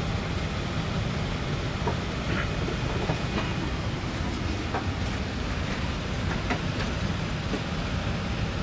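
Steady low rumble and hiss of a Boeing 747-8i's cabin background noise on the ground before departure, with a few faint clicks and taps in the middle.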